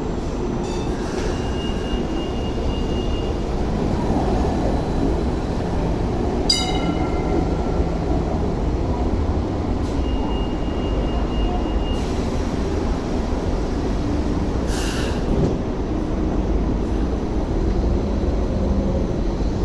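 Hong Kong Light Rail trains running through the stop: a steady low rumble of rolling cars as one train pulls out and others come in around a curve. Twice a thin, high wheel squeal lasts a couple of seconds.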